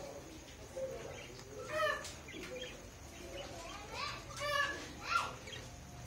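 Caged parakeets calling: a few short, high-pitched chattering calls about two seconds in and again in a cluster around four to five seconds.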